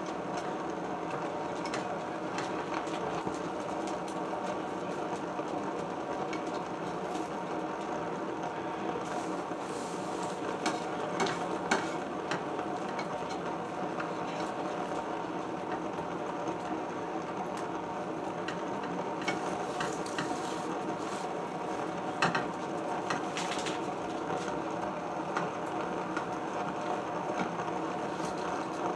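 A steady hum with faint tones runs throughout, and a spatula scrapes and taps in a frying pan a few times, mostly about a third of the way in and again after two-thirds.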